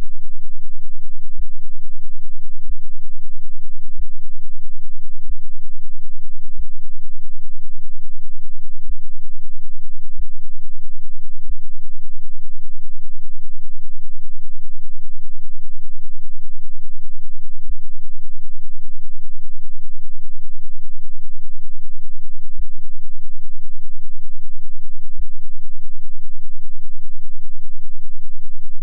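Synthesized brown noise: a loud, steady, deep rumble with its energy packed into the lowest frequencies, and faint clicks repeating about every second and a bit.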